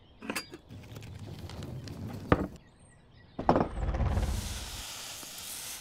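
Added sound effects over product footage: a few clicks and knocks, a sharp hit about two seconds in, and a heavier hit with a low boom about three and a half seconds in, followed by a hissing whoosh over a blurred whip-pan transition.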